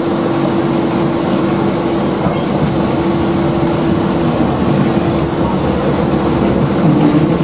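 Hong Kong light rail tram pulling away from a stop, heard from inside the car: a steady motor hum over continuous wheel-on-rail noise.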